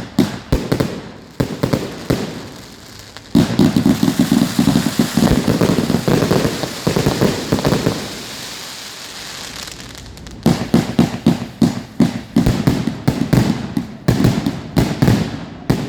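A 245-shot firework cake firing shot after shot, its launch reports coming about four to five a second. In the middle the shots give way to a dense stretch of crackling that slowly dies down, and rapid firing starts again about ten seconds in.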